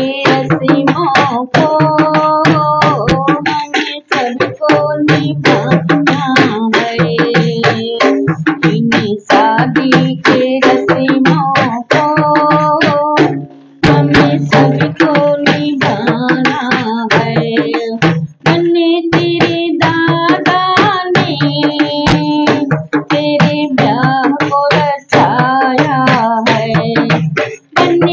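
A woman singing a Hindi banna-banni wedding folk song, with a hand-beaten frame drum keeping a fast, steady rhythm under the voice. The singing and drumming break off briefly twice, about halfway through and again a few seconds later.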